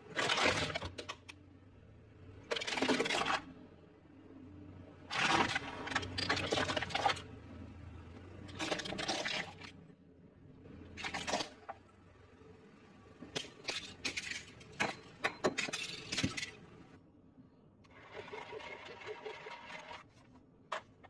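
Plastic toys cracking and crunching as a car tyre rolls over them, in a series of separate bursts of snapping and crackling with short pauses between.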